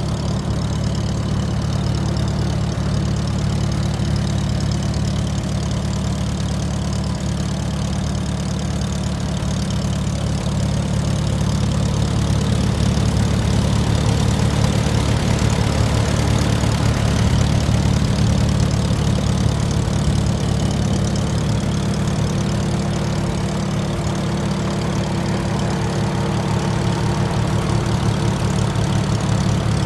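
1951 McCormick-Deering W-4 tractor's four-cylinder engine idling steadily.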